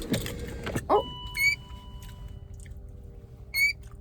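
A car's warning chime beeps twice, about two seconds apart, after a few knocks in the first second.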